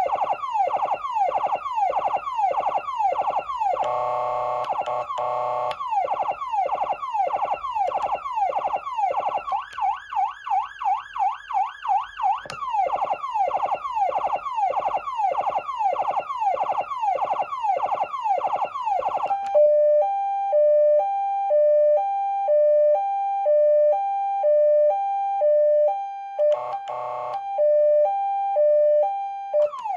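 Galls Street Thunder ST240 electronic siren amplifier sounding through its tones. It starts with rapid falling sweeps, about two a second, broken by a brief harsh horn blast about four seconds in and a faster up-and-down warble around ten to twelve seconds. From about twenty seconds it switches to a two-tone hi-lo alternation, with another short horn blast near the end.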